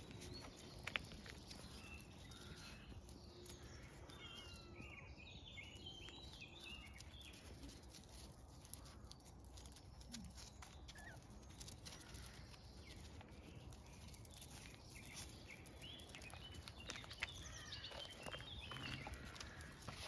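Quiet outdoor ambience: faint birds chirping in short bursts, with soft scuffs and ticks of puppies' paws on gravel and concrete.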